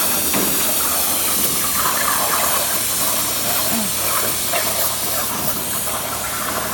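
CNC plasma cutter's torch hissing steadily as it cuts thin steel sheet.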